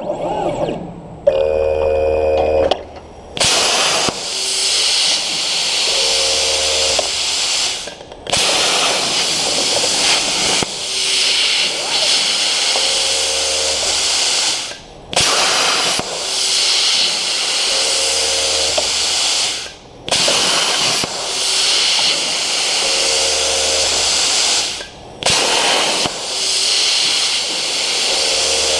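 CNC plasma torch cutting 18 gauge steel at 45 amps: a loud, steady hiss from the arc and air jet. The hiss stops for a moment every five to seven seconds, with a short hum between cuts, as the torch moves on and fires again.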